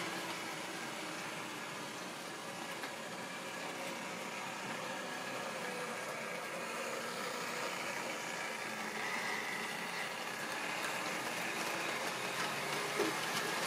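OO-gauge model trains running on the layout: a steady whirring of small electric locomotive motors and wheels rolling on the track.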